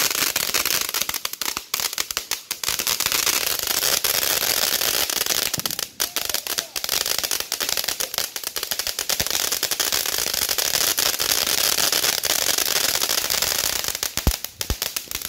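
Ground fountain firework spraying sparks: a steady hissing with dense crackling throughout, and a few spells of thicker, sharper crackle.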